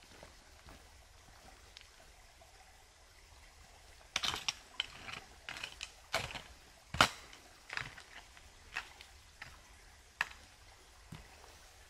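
A string of sharp, irregular knocks and cracks beginning about four seconds in, the loudest near the middle, with a last single knock near the end.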